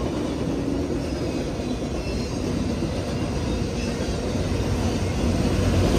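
Freight train of autorack cars rolling past at close range: a steady rumble and rattle of steel wheels on rail, with a few faint high wheel squeals, growing a little louder near the end.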